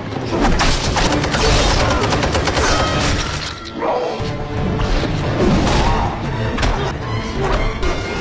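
Action-film fight soundtrack: score music under a dense run of punches, thuds and crashes, easing off briefly about four seconds in before the hits resume.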